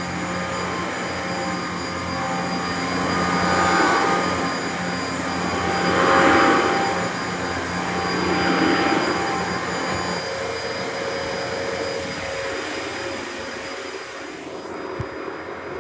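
Dyson upright vacuum cleaner running, a steady motor whine and rush of air that swells three times and eases a little about two-thirds of the way in, with a single click near the end.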